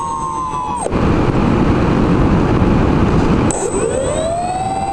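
Electric motors of a Twinstar II model airplane whining steadily, then cutting out about a second in, leaving the rush of wind over the airframe and microphone. Near the end the motors throttle back up in a rising whine that then holds steady.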